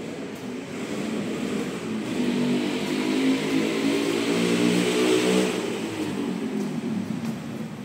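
A motor vehicle's engine passing by. It grows louder to a peak about three to five seconds in, then fades away.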